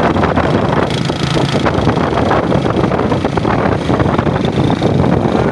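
Motor tricycle (a motorcycle with a passenger sidecar) running along the road, heard from inside the sidecar: a steady engine drone mixed with road noise.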